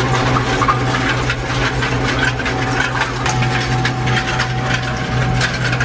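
Farm tractor engine running steadily under load during fieldwork, with a continuous rattling clatter from the machinery.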